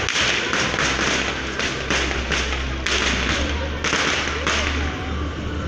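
Aerial fireworks bursting in quick succession: sharp bangs and crackles about two a second over a steady low rumble.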